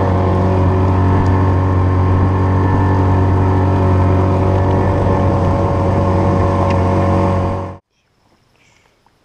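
Outboard motor of a small aluminium skiff running steadily at cruising speed, heard close up from inside the boat, with an unchanging low hum. It cuts off sharply near the end, leaving near silence.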